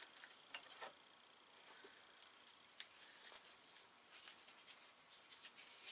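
Faint rustling and small clicks of sailcloth and sewing gear being handled at a workbench, busier in the last couple of seconds.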